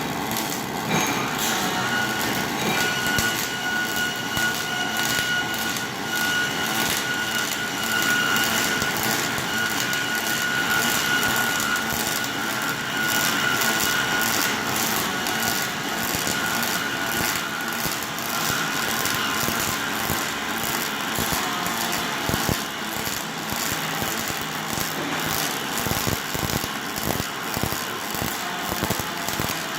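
Robotic arc welding: a steady crackling buzz from the welding arc, with a faint high whine over roughly the first half.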